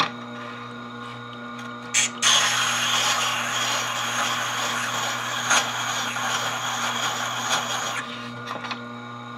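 A Tormek sharpener's motor hums steadily. About two seconds in, a tungsten carbide fly cutter touches the wheel with a click, then grinds against it as a loud hiss for about six seconds, putting a 75-degree micro bevel on the tip. The grinding stops suddenly, followed by a couple of light clicks.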